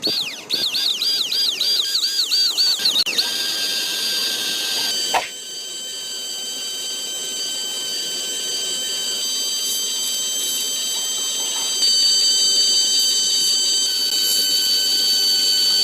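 A high-pitched, alarm-like tone warbling up and down about five times a second, which turns into a steady high whine about three seconds in, with a single click a couple of seconds later.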